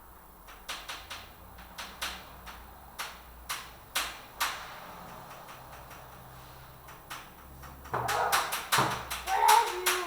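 Scattered knocks and clicks, a few each second, growing into a louder, denser clatter in the last two seconds.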